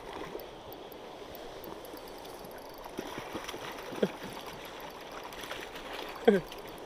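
River water flowing steadily over rocks, a continuous rushing. About four and again about six seconds in there is a brief downward-sliding pitched sound, the second one louder.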